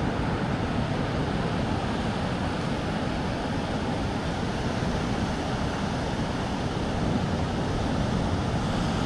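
Big waves breaking and surging up the beach, a steady rush of surf mixed with wind noise on the microphone.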